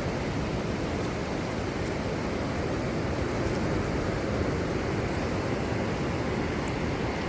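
Ocean surf heard as a steady, even wash of noise, with no single wave standing out.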